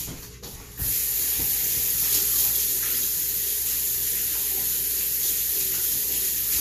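Kitchen sink faucet running steadily as hands are washed under it; the water comes on about a second in.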